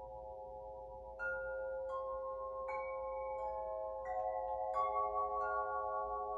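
Steady held tones at several pitches, joined about a second in by chimes struck one after another. A new note comes roughly every 0.7 s, and each rings on and layers over the others.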